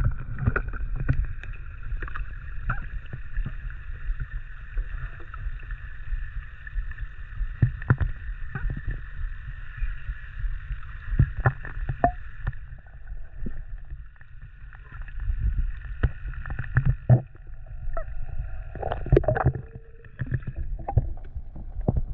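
Underwater sound picked up by a camera in a waterproof housing while the diver swims: a low rumble of moving water with scattered knocks and clicks, over a steady high-pitched noise that stops near the end.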